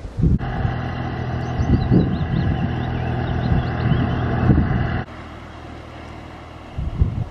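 Tractor engine running loud and steady as the tractor passes close by, with birds chirping faintly over it. The engine sound cuts off abruptly about five seconds in, leaving a quieter background with a few gusts of wind on the microphone near the end.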